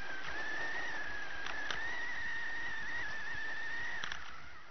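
RC off-road truck's motor and drivetrain whining at a high, steady pitch that wavers slightly with throttle, over rough running noise with a few knocks from bumps; it fades out near the end.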